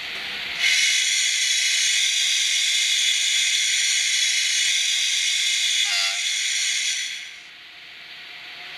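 ESU sound decoder in a Roco N-scale BR101 model electric locomotive playing a loud hissing whine with several steady high tones through its tiny speaker, with a short falling tone near the end of it. About seven seconds in it drops to a softer hiss.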